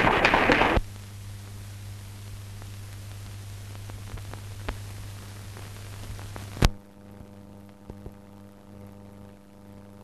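Applause cut off abruptly about a second in, leaving the hiss and steady mains hum of an old newsreel film soundtrack. A single sharp click about two-thirds of the way through, after which the hum is quieter and changes tone.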